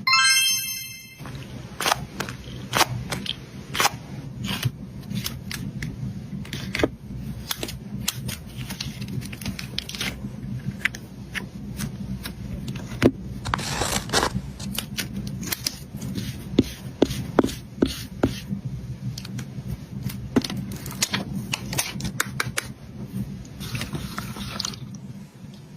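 Irregular clicks, taps and scrapes of small objects being handled while crafting, over a steady low hum. A short chiming sound effect plays in the first second.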